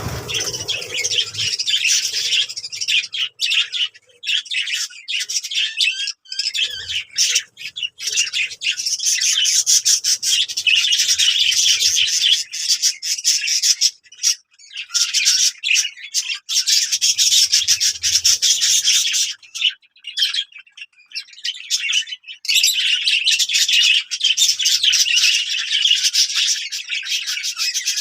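Small birds chirping and chattering in a dense, rapid stream of high calls, pausing briefly twice.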